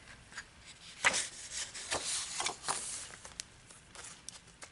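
Sheets of a patterned paper pad rustling and sliding against each other as they are leafed through, with a couple of crisp ticks of paper edges.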